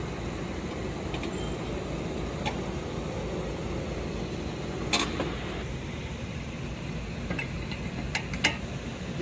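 Steady low mechanical hum of workshop noise, with a few sharp metallic clicks: one about halfway through and two more near the end.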